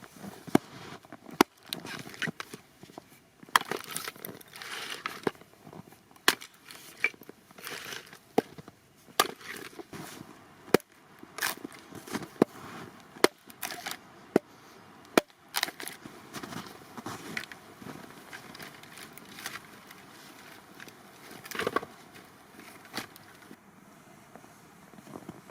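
Wood being broken and worked by hand: irregular sharp cracks and knocks, with crunching and rustling between them.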